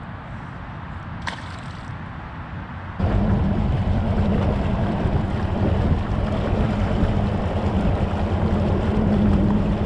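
A quiet stretch with one brief click about a second in, then, about three seconds in, a boat motor starts running steadily with a low hum, mixed with wind rushing on the microphone as the boat moves.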